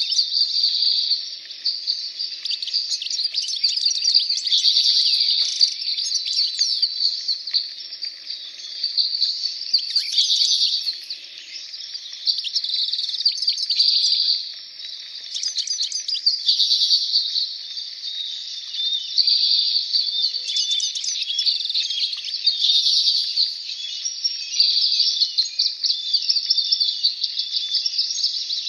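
Many small birds chirping and trilling at once, a dense overlapping chorus of quick high calls that swells and dips every few seconds.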